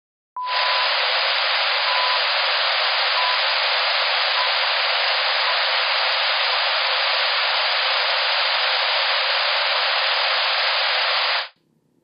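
Uniform masking noise hissing steadily at a loud level, starting about half a second in and cutting off abruptly near the end. Inside it, a test tone beeps about once a second, each beep shorter than the one before, from half a second down to a millisecond. The later, shortest beeps are masked by the noise and can barely be heard.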